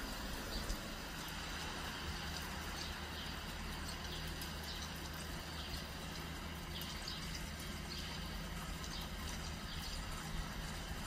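Steady rain falling, with a low steady hum beneath it.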